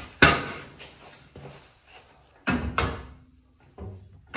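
Steel snowplow mount clanking as it is lined back up with its frame mount: a loud ringing metal clank just after the start, then two more clanks close together past the middle.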